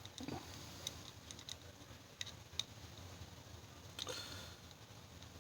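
Faint, scattered small metallic clicks and ticks from working on a picked mortise lock cylinder to take it apart, with a brief scrape about four seconds in.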